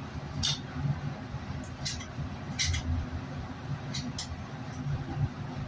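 A boning knife scraping and slicing meat away from the bone of a hanging beef hindquarter: about six short, sharp scrapes, over a steady low hum.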